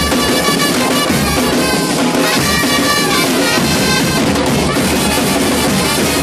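A band playing loudly: held notes from wind instruments over a steady beat of drums and bass drum.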